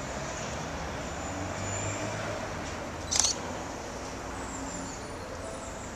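Funicular car rolling up its rails, a steady low rumble, with one sharp click about three seconds in.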